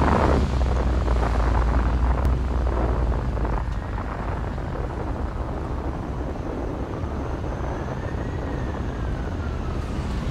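Outdoor traffic ambience: a steady low rumble of passing road traffic, with a louder gusty noise dying away about half a second in and a faint tone rising and then falling near the end.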